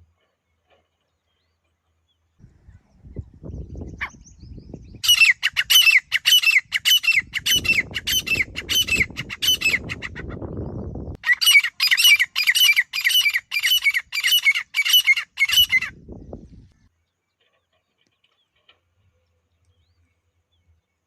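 Grey francolin calling: a loud, harsh note repeated rapidly, about two a second, in two bouts of several seconds with a brief break between them. A low rumbling noise runs under parts of the calling.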